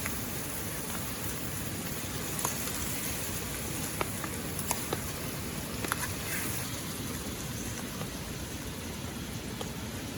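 Steady light rain, with a handful of separate drops ticking sharply over a constant rushing hiss of water.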